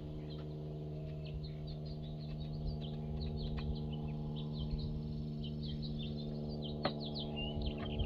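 Steady low hum with many short bird chirps over it, and a single sharp knock about seven seconds in.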